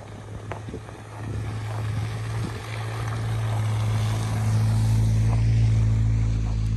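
A car driving past on a snow-covered road: a steady engine hum and tyre noise on snow, growing louder from about a second in. Footsteps crunch in snow near the start.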